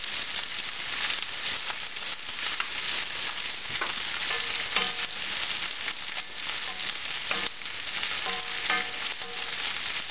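Diced Spam and cabbage frying in bacon grease in cast-iron skillets, a steady sizzle. The sizzle is just right, the sign that the food is cooking properly. A wooden spoon knocks and scrapes against the pan a few times as the Spam is stirred, about halfway through and again near the end.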